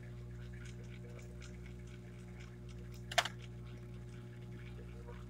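A steady low hum runs throughout, with faint scattered ticks and one sharp click about three seconds in.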